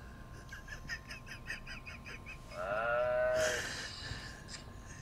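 A man groaning in his sleep: a drawn-out, whiny groan about halfway through, after a quick run of about a dozen short, high-pitched pulses.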